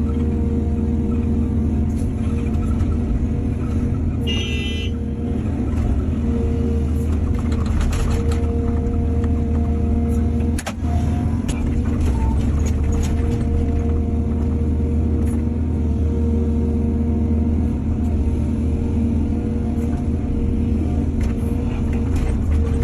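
Excavator's diesel engine running steadily under working load, with occasional knocks and scrapes, and a brief high squeal about four and a half seconds in.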